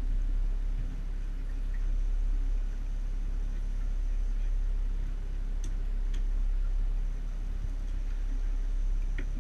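Steady low rumble on a small fishing boat, with a few light clicks from the rods and reels being handled, twice around the middle and once near the end.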